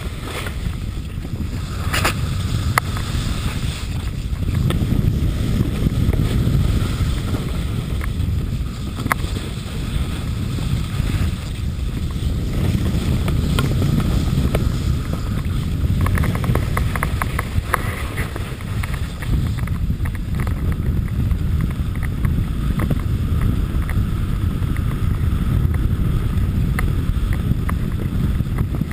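Wind buffeting the microphone of a camera moving fast downhill on a skier, a loud, steady low rumble, mixed with the scrape of travel over groomed snow. A few sharp clicks break through, and there is a brief rapid rattle about halfway through.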